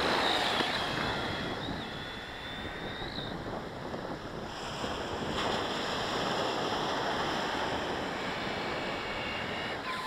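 Surf washing onto a sandy beach, with wind rumbling on the microphone. For about the first three seconds a thin, high, steady whine sits over the noise.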